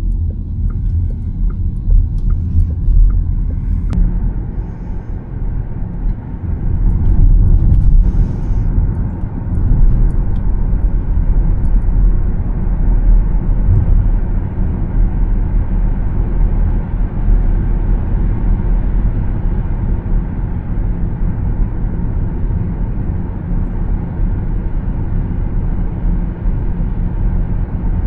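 Steady low rumble of road and tyre noise from a Škoda Elroq electric SUV on the move, with no engine note. It swells for a few seconds about a third of the way in, and a faint regular ticking sounds in the first few seconds.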